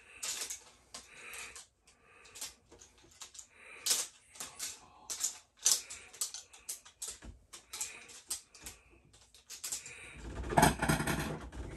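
Irregular clicking and tapping at a desk, uneven sharp clicks a few per second, with a louder burst of rustling and knocking about ten and a half seconds in.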